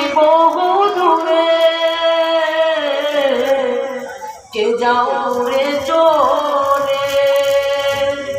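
A man singing unaccompanied into a microphone in long, drawn-out ornamented phrases. There are two held phrases, with a brief breath break about four seconds in.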